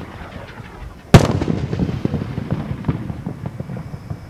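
Aerial firework shell bursting: one sharp, loud boom about a second in, followed by a long rumbling tail scattered with small pops.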